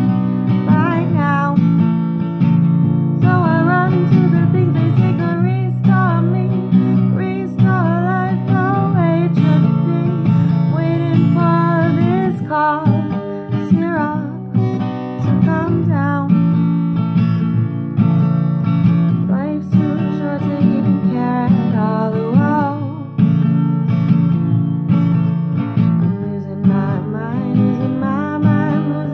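Ukulele strummed steadily through a chord progression, with a melody that slides and wavers between notes above the chords.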